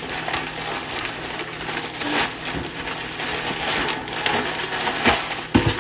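Thin plastic poly mailer bag being torn and pulled open by hand, crinkling and rustling with short sharp rips throughout, and a couple of low thumps near the end.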